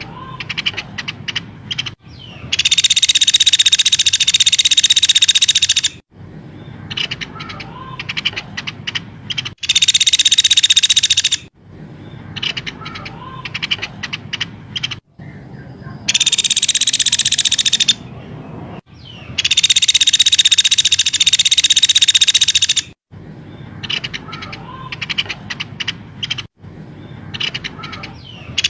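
Looped bird-song training recording: songbirds give short, sharp chirps and whistles, broken every few seconds by loud, dense, high buzzing trills lasting one to four seconds. The trills start and stop abruptly, like spliced clips.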